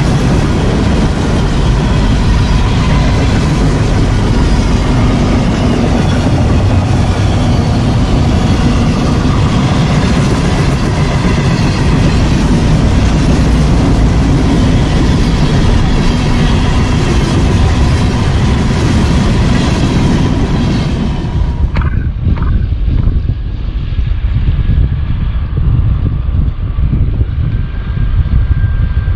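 Union Pacific freight cars passing close at speed: loud, steady rolling and rattling of steel wheels on the rails with a thin steady whine. About 22 seconds in the sound changes abruptly to a lower, duller rumble.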